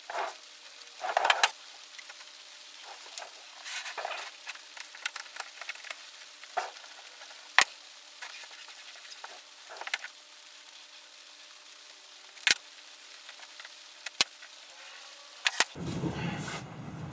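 Leatherette being cut and worked at a corner of a wooden tool chest: scattered small clicks, snips and rustles, with a few sharp ticks and some handling bumps near the end.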